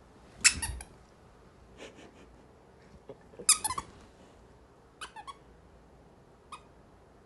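Squeaky dog toy squeezed in the jaws of a giant schnauzer, giving five bursts of quick squeaks, the loudest about half a second in and about three and a half seconds in.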